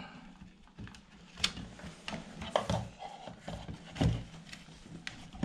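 Scattered clicks and knocks of cable plugs being handled and pushed into sockets, the sharpest about a second and a half in and again about four seconds in.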